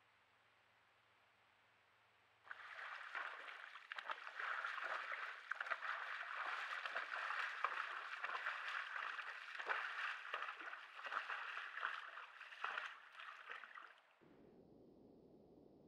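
A moose wading through a shallow pool, its legs splashing and sloshing through the water step after step. The splashing starts suddenly about two and a half seconds in and cuts off near the end, leaving only a faint hiss.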